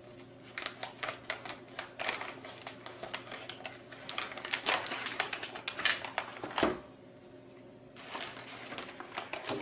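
Scissors snipping and cutting through the board's packaging: a quick, irregular run of sharp clicks and cuts, a pause of about a second near the end, then more snipping.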